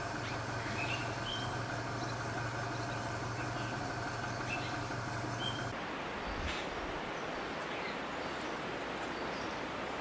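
Steady outdoor background rumble with faint, short, rising bird chirps about once a second. About six seconds in, the rumble drops away and a plainer hiss remains.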